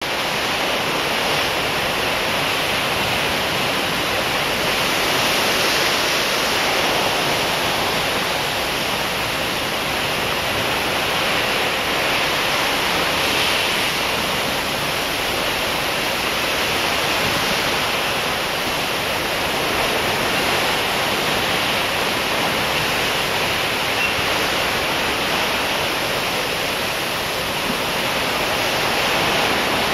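Steady rushing of white water churned up along the hull of a moving ship, swelling and easing slightly as the waves pass.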